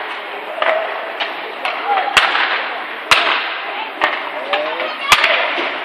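Ice hockey play in an arena: sharp clacks of sticks striking the puck and ice, with two louder bangs about two and five seconds in, over a steady scrape of skates and short shouts from players.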